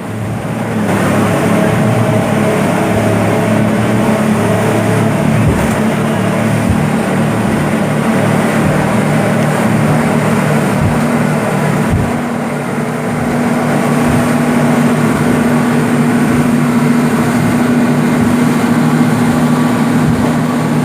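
Motorboat engine running at a steady, continuous drone under a wash of wind and water noise, with a few short low thumps scattered through it.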